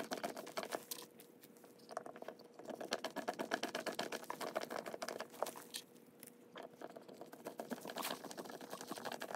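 Small screws being driven by hand with a screwdriver through a steel cabinet hinge into a wooden door: faint, rapid ticking and creaking in bursts, with two short lulls as the grip is reset.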